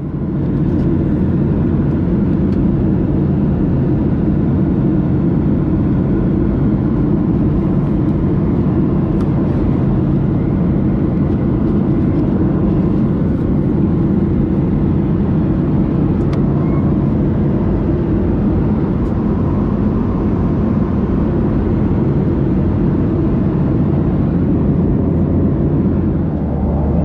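Steady cabin noise of a Boeing 737-800 in flight: the continuous deep rumble of its CFM56 jet engines and rushing air, heard from a window seat.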